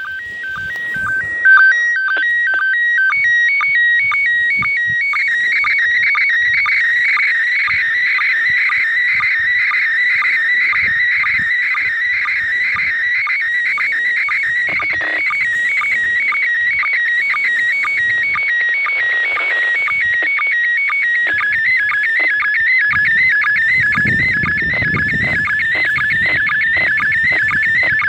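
Slow-scan TV (SSTV) picture signal from the International Space Station, heard through a handheld transceiver's speaker. It opens with a few steady tones stepping between two pitches, then runs on as rapidly switching, warbling tones with an even repeating rhythm while the picture lines come in.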